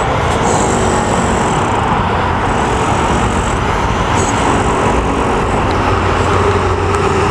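Steady city road-traffic noise: the dense rumble of passing cars and engines, with a steady engine hum joining about five seconds in.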